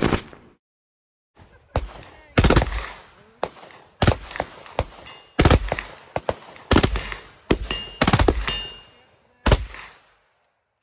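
A rifle firing downrange in about a dozen short, irregularly spaced bursts and shots, each ringing out over the open field. Before it, an intro music sting cuts off about half a second in.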